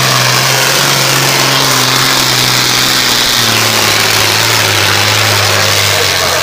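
Super Farm class pulling tractor's turbocharged diesel engine running flat out under load as it pulls the sled down the track. Its note steps down once, about halfway through.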